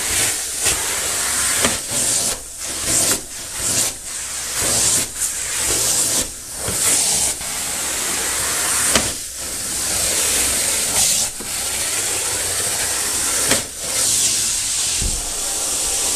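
Carpet-cleaning extractor's detailer tool drawing air and water along the carpet edge: a loud, steady suction hiss that dips briefly again and again.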